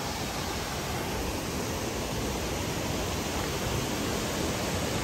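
Rushing river water running over rocks: a steady, even rush with no breaks.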